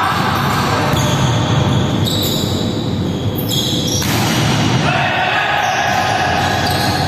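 A volleyball being struck during a rally, ball hits echoing in a large hall, with the steady hubbub of the game around it.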